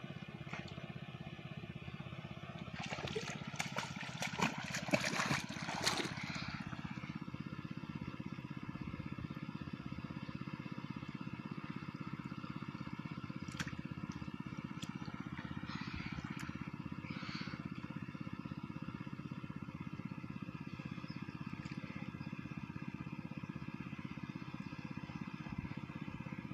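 A small engine running steadily: a continuous, even drone. A few brief louder noises come about three to six seconds in.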